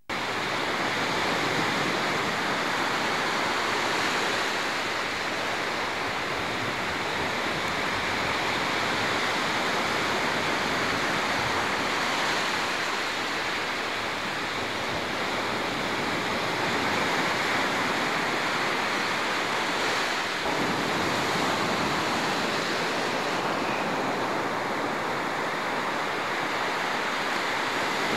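Gulf of Mexico surf breaking on a beach: a steady rush of waves.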